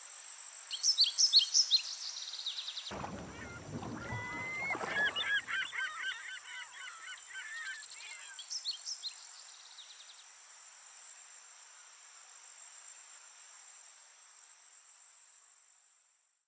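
Outdoor bird ambience: quick high chirps in the first two seconds and again about eight seconds in, and a run of wavering honk-like calls between about four and eight seconds, over a steady high hiss. A low rumble runs underneath from about three to five seconds in. The whole bed fades away near the end.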